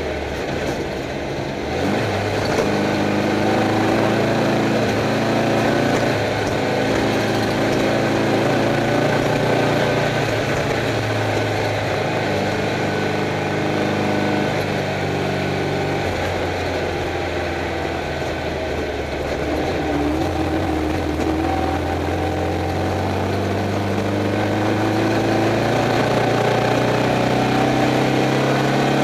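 Air-cooled Volkswagen flat-four of a Class 11 Stock Bug running under load, heard from inside the car; its pitch climbs and drops several times as the revs change.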